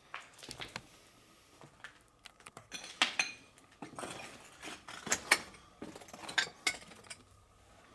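Footsteps crunching over a floor strewn with rubble, with irregular clinks and knocks of hard debris underfoot.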